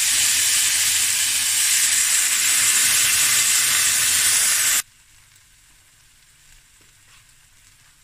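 Water hitting a hot stainless-steel pan of browned chicken and rendered fat, sizzling loudly and flashing to steam. The hiss cuts off suddenly about five seconds in, leaving only faint room tone.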